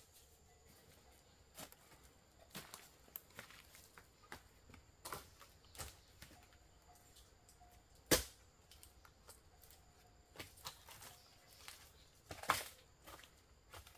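Irregular light knocks and clicks, with one sharp knock about eight seconds in and a louder cluster near the end.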